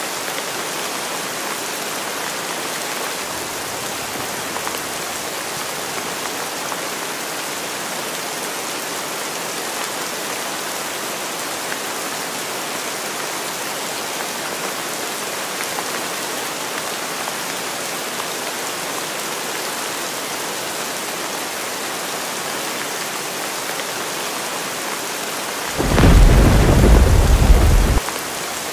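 Heavy rain falling steadily. Near the end a loud, deep rumble of thunder lasts about two seconds and cuts off abruptly.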